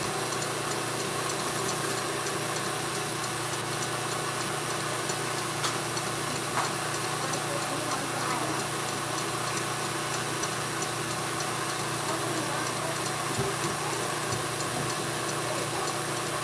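KitchenAid stand mixer running steadily, its motor humming as the whisk beats egg whites to a foam in the steel bowl.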